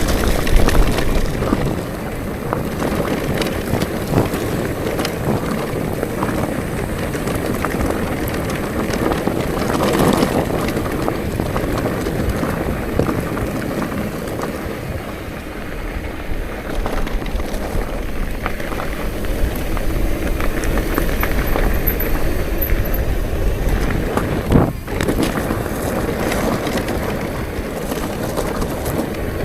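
Wind buffeting the microphone and tyres rumbling over a rough forest road as a bicycle rides along, with a sharp jolt about 25 seconds in.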